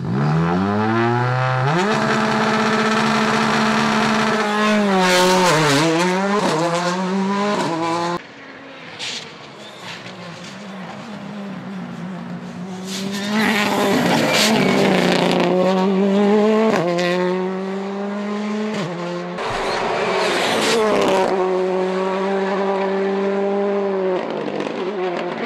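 Rally car engine revving hard through the gears, its pitch climbing, holding and dipping sharply as the driver lifts off and accelerates again. There is a sudden drop about eight seconds in, then the revs build again.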